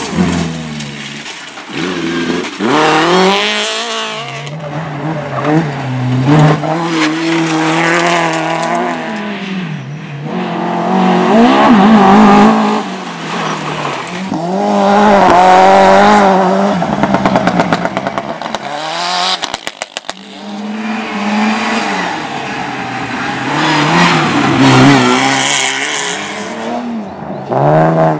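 Rally cars' engines revving hard and passing one after another, pitch climbing through the gears and dropping away, in several loud waves. A rapid run of crackles about eighteen seconds in.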